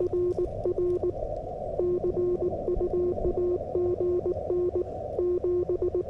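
Morse code sidetone from a Yaesu FTX-1F transceiver as a straight key sends 40 m CW: one steady low-pitched beep keyed in dots and dashes. In the pauses between character groups the receiver's narrow band hiss returns.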